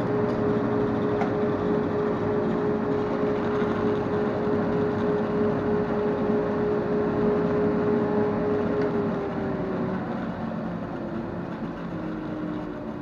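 Grizzly G0555LZ bandsaw and a dust collector running together with a steady hum. About nine seconds in, a motor is switched off and winds down, its hum sliding lower in pitch as the overall noise fades.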